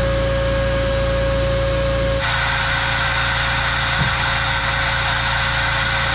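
A small engine running steadily: a low hum with a thin held tone. About two seconds in the sound shifts to a brighter, even running noise, with one light knock a couple of seconds later.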